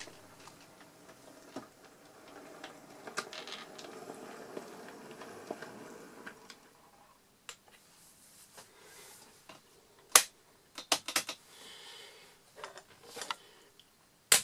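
Hornby OO-gauge model locomotives running on the layout: a steady motor hum with light wheel clicking over the track, dying away about six and a half seconds in. In the second half there are separate sharp clicks and clacks, the loudest right at the end.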